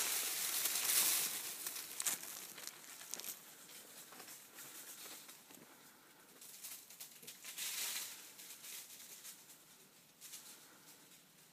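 Dry leaves and brush crunching and rustling, loudest in the first two seconds with another burst about eight seconds in, then fading.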